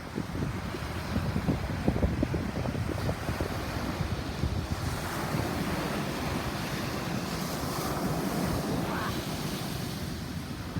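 Heavy typhoon-driven ocean swell breaking on the shore: a steady, deep rumbling wash, with a louder hissing surge from about five to nine seconds in. Wind buffets the microphone throughout.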